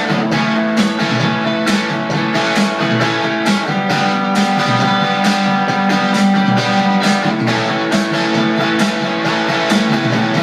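Band playing an instrumental passage of a rock song: strummed guitars over drums keeping a steady beat, with no singing.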